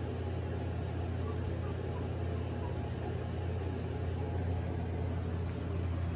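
Steady low hum of an electrical appliance running in the room.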